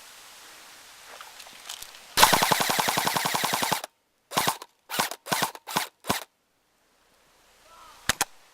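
Airsoft gun firing a rapid full-auto burst of about a second and a half, then about six quick separate shots. Two sharp clicks follow near the end.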